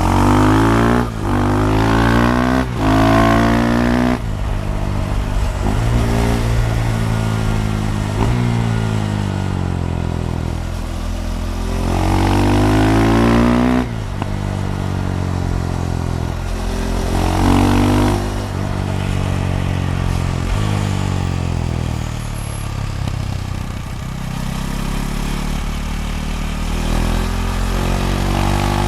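KTM Duke 390's single-cylinder engine through a de-catted Akrapovic slip-on exhaust, pulling hard through the gears: quick rising revs cut by several sharp upshifts near the start. Later the revs climb twice more and fall away between, as the throttle is rolled off.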